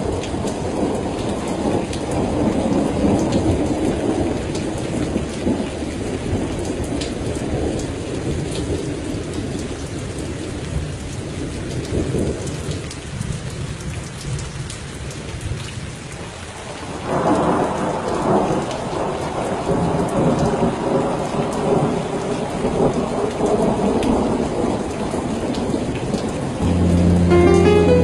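Rain on window glass with long rolls of thunder; the rumbling eases off past the middle, then a new, louder roll breaks in suddenly about two-thirds of the way through. Music starts near the end.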